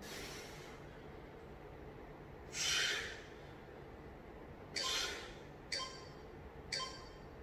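A man breathing hard while holding a plank, with sharp hissing exhales. The longest comes about a third of the way in, then three shorter ones about a second apart near the end.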